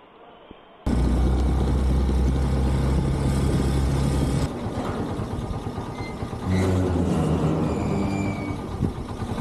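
A few faint clicks, then, about a second in, a motorcycle engine running loud and steady under the rider, its drone changing pitch about halfway through.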